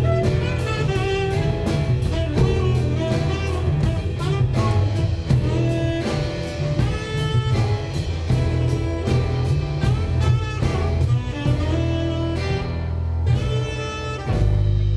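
Small jazz band playing live: saxophone melody over a walking upright double bass, acoustic guitar and drum kit with steady cymbal hits. The cymbals drop back for a moment near the end while the bass stays prominent.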